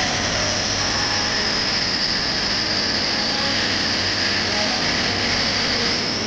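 Handheld angle grinder cutting into a steel tube: a steady high whine over a rough, hissing grind.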